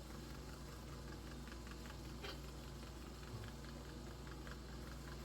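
Ground beef simmering in sauce in a pan: a faint, steady crackle of small pops over a low hum, with one light click about two seconds in.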